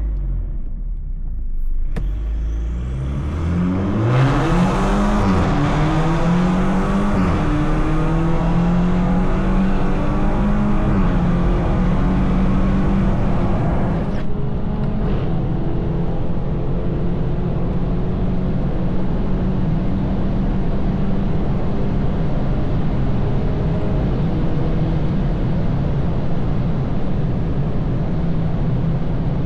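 BMW 220i's turbocharged B48 2.0-litre four-cylinder, stage 2 tuned with a free-flowing downpipe and M240i exhaust, accelerating with the revs climbing and briefly dipping twice. It then settles into a steady drone at constant revs.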